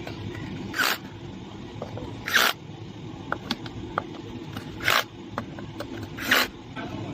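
Four short rasping scrape strokes, like a hand tool drawn across a hard surface, about one and a half seconds apart, with small clicks and taps between them.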